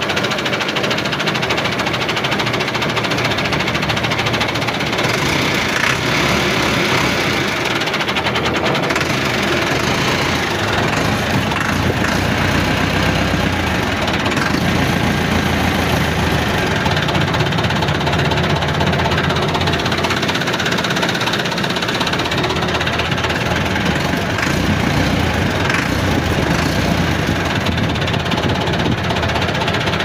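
An engine running steadily and evenly at a constant pace.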